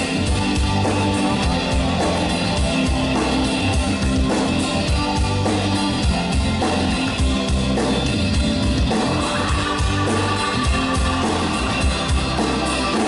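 Live rock band playing an instrumental passage, with electric guitars, bass guitar and a drum kit amplified through a PA, heard from the audience.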